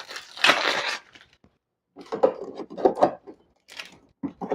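Plastic switch plate cover handled and fitted against the wall over a light switch: a rustle about half a second in, then a few short scrapes and taps as it is pressed into place.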